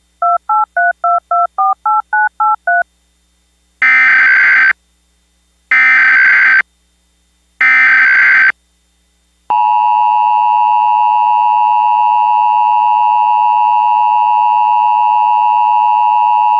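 Emergency Alert System tones. A quick string of about a dozen touch-tone (DTMF) beeps is followed by three one-second bursts of EAS header data, a harsh digital warble with a pause after each. Then the steady two-tone EAS attention signal starts about nine and a half seconds in and holds. Together these open an emergency alert, here a National Periodic Test.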